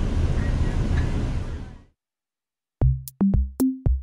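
Steady low rumble of a moving train, fading out just under two seconds in. After about a second of silence, electronic music starts with a regular drum-machine beat and a stepping bass line.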